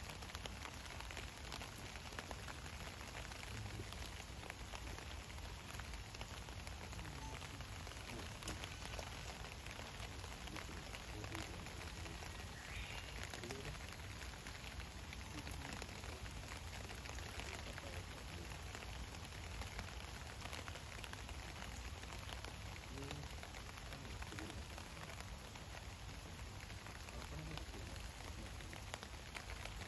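Light rain falling steadily: a faint, even patter with scattered small drip ticks.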